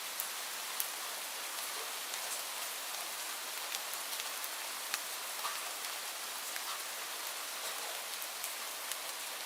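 Light rain falling steadily, an even hiss with scattered individual drops ticking sharply.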